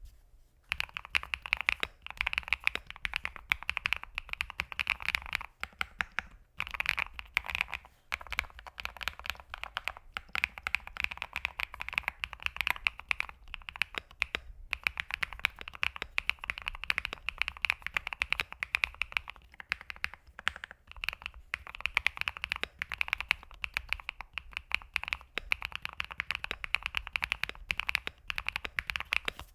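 Typing on a Swagkey QK100 custom mechanical keyboard fitted with fully lubed Bsun RAW switches: a fast, dense run of keystrokes, broken by a few brief pauses.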